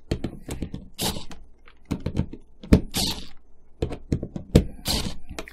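A cordless screwdriver driving the bonnet screws into a plastic irrigation valve: irregular clicks and knocks of the bit and the plastic, with a few short hissy bursts, as the screws are snugged down on the rebuilt valve.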